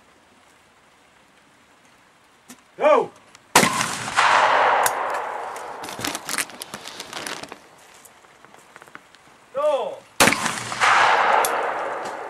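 Shotgun fired at clay targets twice, about six and a half seconds apart, each time half a second after a short shouted call for the target. Each report rings out and dies away over two or three seconds.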